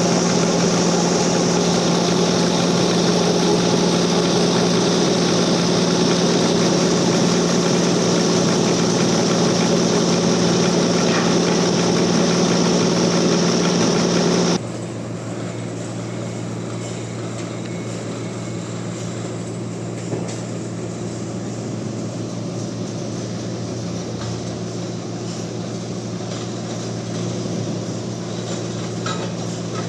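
Sawmill bandsaw running steadily at full volume, with a high hiss over a steady hum, as typical of a cut through a large trembesi (rain tree) log. About fifteen seconds in the sound drops suddenly to a quieter, steady low machine hum.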